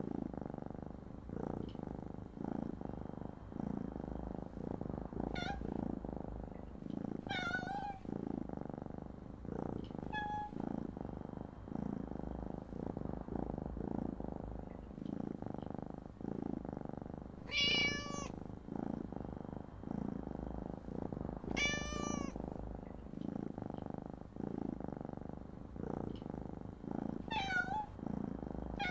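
A cat purring steadily, the purr swelling and fading about twice a second, with about six short meows scattered through it, the two loudest near the middle.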